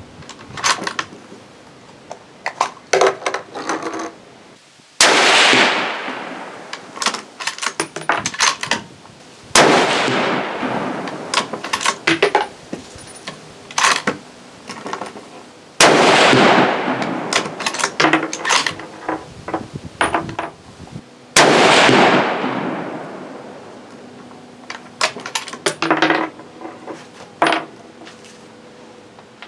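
.308 Winchester Savage Axis bolt-action rifle fired four times, several seconds apart, each shot followed by a long fading echo. Between the shots come quick metallic clicks and clacks of the bolt being worked to eject the spent case and chamber the next round.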